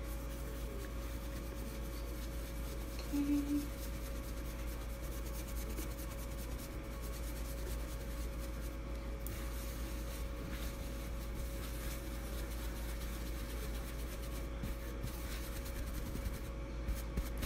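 Faint scratchy rubbing of a makeup brush's bristles worked back and forth on a paper towel, wiping out makeup loosened by brush-cleaner spray, over a steady low hum. A brief low tone sounds about three seconds in.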